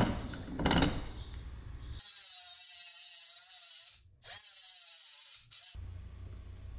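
A couple of knocks as a small circuit breaker is handled in a bench vise, then a Milwaukee M12 compact cut-off tool spinning up and cutting through the breaker's small metal mounting bracket, its whine wavering under load, from about two seconds in until nearly six seconds, with a short break in the middle.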